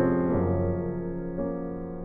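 Background piano music: two chords struck about a second apart, each ringing and slowly fading.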